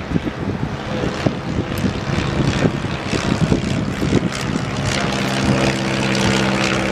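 Diesel locomotive engine on an approaching train, its drone growing louder and settling into a steady low hum about five seconds in, with irregular knocks and rumbling in the first few seconds.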